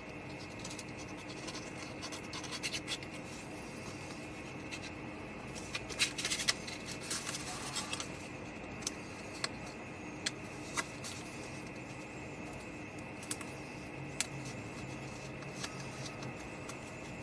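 Cardstock pieces being handled and glued down: scattered light taps and clicks, with a stretch of scratching and rustling about six seconds in, over a steady background hum.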